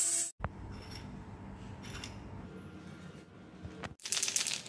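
An angle grinder with an abrasive disc grinds steel and cuts off abruptly within the first half-second. After a faint stretch, a brief high, rattling hiss comes from an aerosol spray paint can being shaken about four seconds in.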